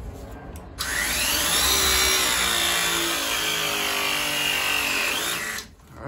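Battery-powered press tool crimping a MegaPress fitting onto black steel pipe. Its motor starts about a second in with a rising whine, runs at a steady pitch for about four seconds, rises briefly and then cuts off as the press cycle ends.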